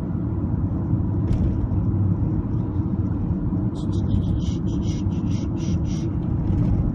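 Steady low rumble of a car's engine and road noise, heard inside the cabin while driving, with a short run of faint light clicks about halfway through.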